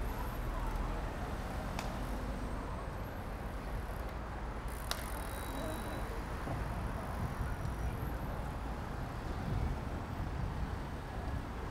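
City street ambience: a steady hum of traffic with a low rumble, and two brief sharp clicks about two and five seconds in.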